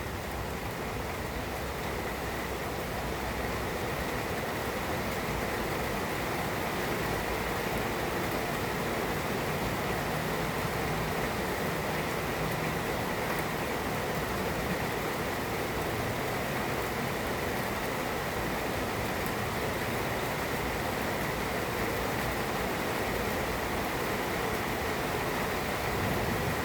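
Heavy rain pouring down steadily, an even hiss with no thunder claps.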